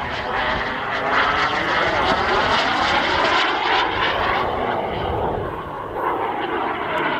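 Turbine engine of a giant-scale RC BAE Hawk model jet running in flight, a steady loud jet rush with sweeping pitch as it passes. The higher hiss dies down about four and a half seconds in.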